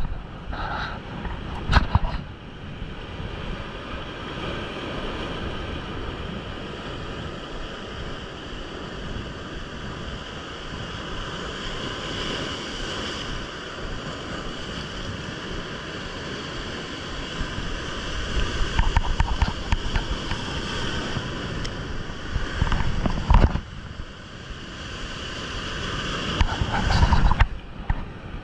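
Heavy surf breaking and washing over shoreline rocks, a steady rushing wash with several louder surges, mostly in the second half. At times there is wind buffeting the microphone.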